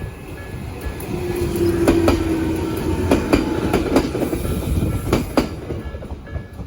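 A Jōmō Electric Railway train passing over a level crossing, its wheels clicking over rail joints in close pairs. The crossing's electronic warning bell, Nikko type, rings in a repeating pattern and is buried under the train through the middle.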